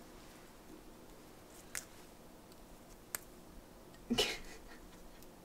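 Quiet kitchen room tone with two faint clicks, then a short clatter about four seconds in as a ceramic dinner plate is handled on the counter.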